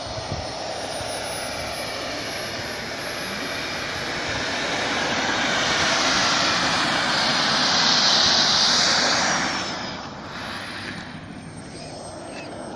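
Radio-controlled model jet's small turbine engine, a high whine over a rushing blast as the model rolls along the runway. It grows louder to a peak about eight to nine seconds in, then drops off quickly; the whine rises in pitch and later falls.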